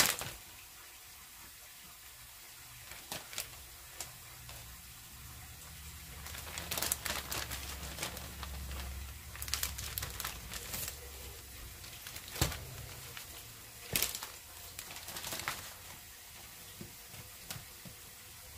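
Plastic Ziploc freezer bags crinkling and rustling in irregular bursts as they are handled and balls of pizza dough are slipped into them, with a couple of sharper crackles a little past the middle.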